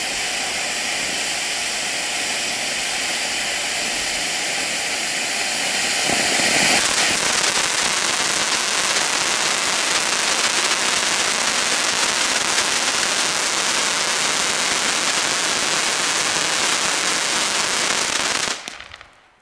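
Röder Dämonenfeuer ground fountain (volcano) spraying sparks with a steady, dense hiss. It grows louder about seven seconds in and stops sharply near the end as the fountain burns out.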